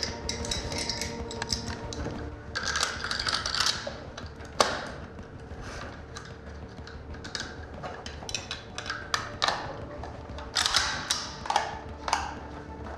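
AK-47 rifle being reassembled by hand at speed: a steady run of metallic clicks, snaps and clatter as the parts are fitted and locked back together, with one sharp knock about four and a half seconds in and a quick flurry of clicks near the end.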